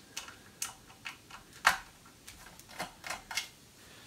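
Light, irregular clicks and taps, about a dozen, the sharpest about one and a half seconds in, from hands working a Myenergi Eddi unit free of its mounting bracket.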